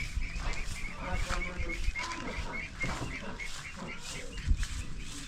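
A bird chirping in a fast, steady series of short, high chirps, about three or four a second, with scattered soft knocks and rustles and low wind-like rumble underneath.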